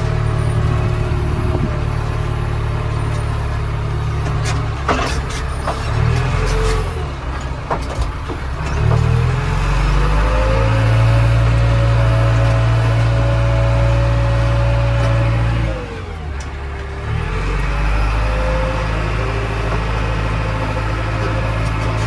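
JCB 3DX backhoe loader's diesel engine running under load, heard from inside the cab as the machine drives, with a whine that rises and falls as engine speed changes. A few knocks and rattles come early on. About two-thirds of the way through, the revs drop briefly and then pick up again.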